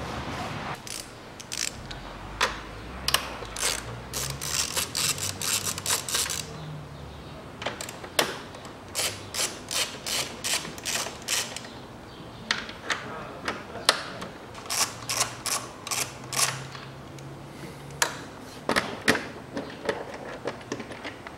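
Ratchet wrench clicking in runs of quick clicks with short pauses between, as fasteners on the engine cover and intake duct are undone.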